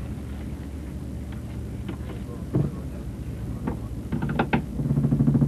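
Fishing boat's engine running steadily, with a few short knocks and clanks of gear on deck. A louder low drone comes in near the end.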